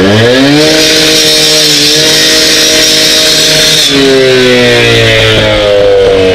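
An engine revs up, holds at a steady high speed for about three seconds, then drops back about four seconds in and slowly winds down.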